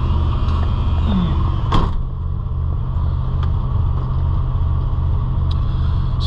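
1977 Dodge Monaco's 360 V8 with a two-barrel carburetor idling steadily with a low, even pulse, heard from inside the cabin; it holds its idle on its own with the carburetor freshly rebuilt. A single sharp click about two seconds in.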